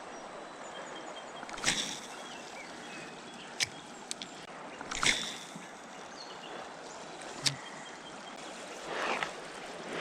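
Steady rush of flowing river water, broken by a few sharp clicks and knocks and a short swell of noise near the end.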